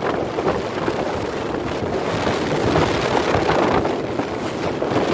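Skis running and scraping over hard, tracked snow at speed, with wind buffeting the microphone: a continuous rushing noise that swells and eases.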